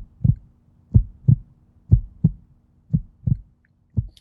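A heartbeat sound: pairs of low thumps, lub-dub, about one pair a second, over a faint steady low hum.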